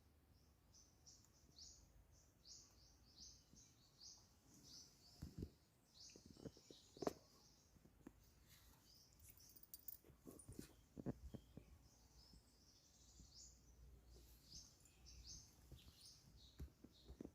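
Faint, rapid high-pitched chirping from birds, repeated throughout, with scattered soft knocks and taps in between.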